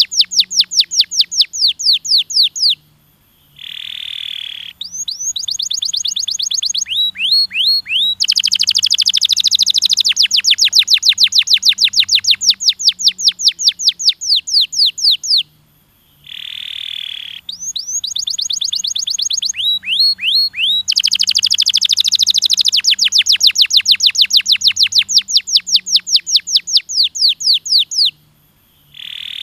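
Domestic canary singing: long rolls of rapid repeated rising notes, broken by short hoarse buzzing phrases and brief pauses. The same sequence of rolls comes round again about every twelve seconds.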